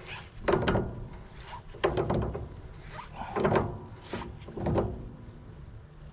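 Steel parts clanking and scraping against each other, several knocks in groups, as a tractor implement mount is worked into line for its pin and bolts. A steady low rumble runs underneath.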